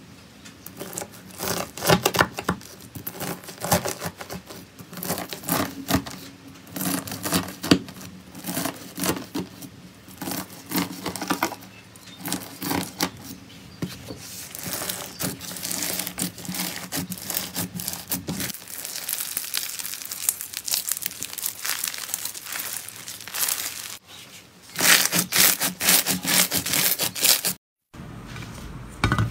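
Crunchy bead-filled slime crackling and popping in dense, irregular snaps as a blade cuts it into strips and it is pressed. The sound cuts off suddenly near the end.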